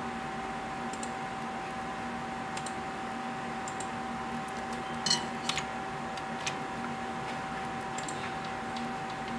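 A handful of light, sharp clicks from a computer mouse, scattered and irregular with a few close together midway, over a steady electrical hum with a thin high whine.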